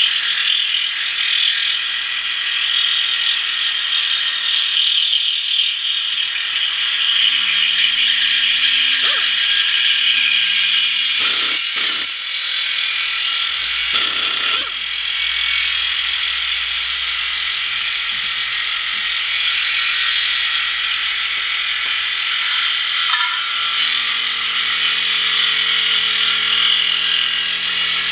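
Handheld air saw cutting through the steel exhaust pipe under a Dodge Charger, running steadily with a high hissing whine, to remove the muffler section. A couple of short sharp knocks sound about halfway through.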